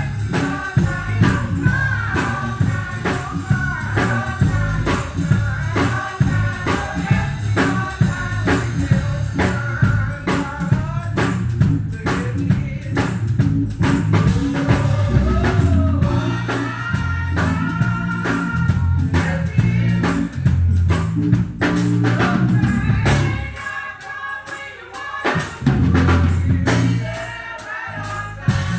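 Gospel praise music: voices singing over bass, drum kit and tambourine. About two-thirds through, the bass and drums drop out for a couple of seconds, then the full band comes back in.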